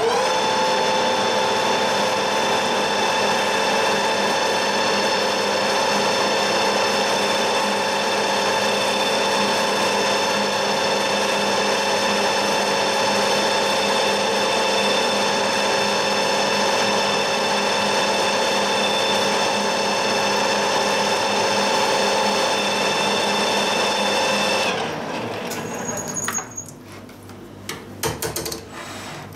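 Metal lathe starting up and running at a steady speed with an even motor whine while a drill is fed into the workpiece held in the chuck. About 25 seconds in the lathe stops, leaving a few light metallic clicks and knocks.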